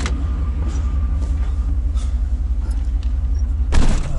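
Truck engine idling with a steady low rumble, and a loud thud of the truck door shutting near the end.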